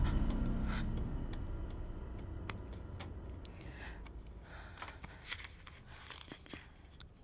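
Faint rustling of bedding and clothing with scattered soft clicks as hands move on a bed, after a low rumble fades out in the first couple of seconds.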